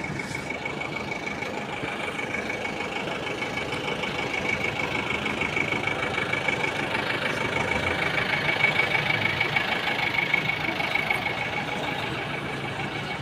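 A vehicle engine running at idle with a steady high-pitched whine, growing louder toward the middle and easing off near the end.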